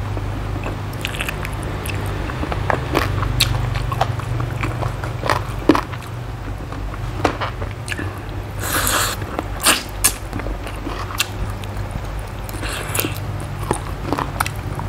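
Close-miked eating: a person biting and chewing stewed chicken feet from a spicy cucumber salad, with scattered sharp crunches and wet mouth sounds and a longer rush of noise about nine seconds in. A steady low hum runs underneath.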